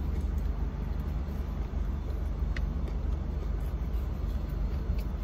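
Steady low rumble of a car idling, heard from inside the cabin.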